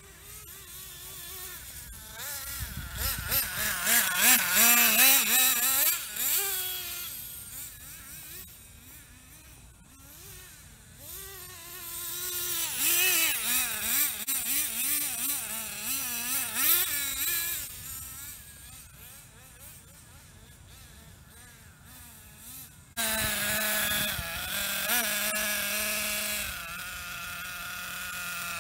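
Hobao Hyper 7 TQ nitro buggy's freshly repinched Hyper 21 three-port glow engine revving, its pitch wavering up and down as the buggy drives, louder and fading twice. From about 23 s in it runs loud and steadier close by.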